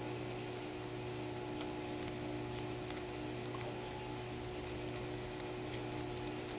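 Small metal screws and a metal applicator part being handled and fitted by hand: scattered light clicks and ticks, most of them from about two seconds in. A steady low hum runs underneath.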